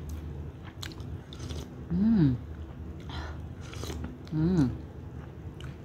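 A person eating soup close to the microphone: sipping from a spoon and chewing, with a few small clicks and two short hummed "mm" sounds about two and four and a half seconds in.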